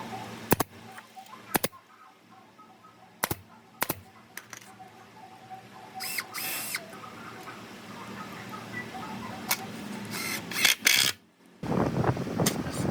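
Workshop sounds: several sharp knocks scattered through, two brief noisy rushes, and near the end a dense mechanical rattling starts up.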